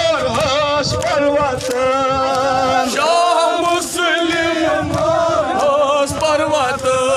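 A group of men's voices chanting together in a melodic devotional chant, the voices overlapping and rising and falling.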